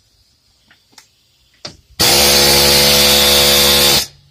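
Pneumatic air hammer with a pointed bit hammering on the end of a front axle shaft in one loud, rapid two-second burst that cuts off abruptly, driving the shaft to break its splines free of the hub. A few light clicks come first as the tool is set in place.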